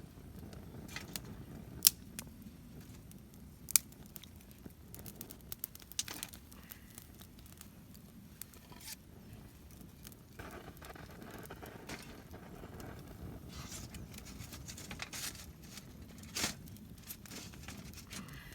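Wood campfire crackling, with a few sharp pops among many small ticks over a low steady background.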